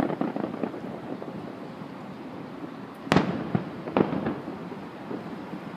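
Aerial firework shells bursting: two sharp booms about three and four seconds in, about a second apart, each followed by a short echoing tail.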